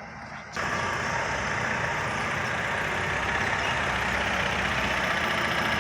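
A heavy vehicle's engine running steadily at low revs, coming in suddenly about half a second in.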